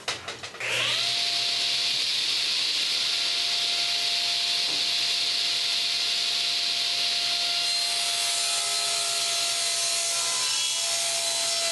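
Table saw motor starting up and rising to speed within the first second, then running steadily with one constant whine while its blade rips a sheet of plywood along the fence.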